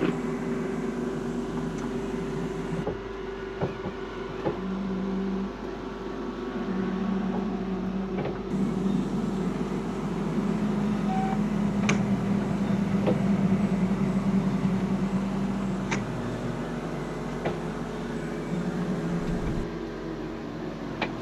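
Class A motorhome slide-out motor running as the slide retracts into the coach: a steady mechanical hum whose pitch wavers in and out, with a few sharp ticks along the way.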